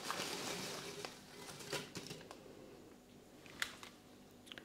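Potato crisps being tipped from a foil packet onto a ceramic plate: a soft rustle of the packet and the crisps sliding out during the first second or so, then a few light clicks as pieces drop and settle.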